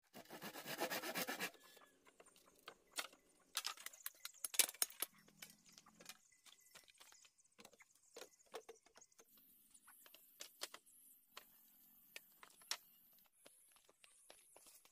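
Bamboo poles being worked and handled: a brief burst of rapid rasping strokes at the start, then scattered hollow knocks and clatters of bamboo pieces bumping together.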